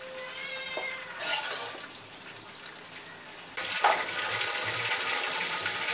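Hot oil sizzling in a kadhai as fried pumpkin-peel strips are scooped out with a metal ladle. The ladle clinks against the pan and bowl early on. A bit past halfway there is a knock, and the sizzle turns suddenly louder and stays so.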